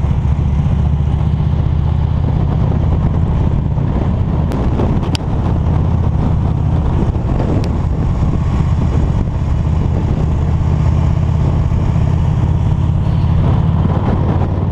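Touring motorcycle engine running steadily at road speed, heard from the bike itself with wind rushing over the microphone.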